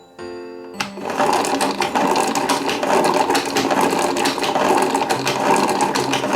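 A small motorised mechanism starts about a second in and keeps whirring with a fast, dense rattle of gears, over faint background music.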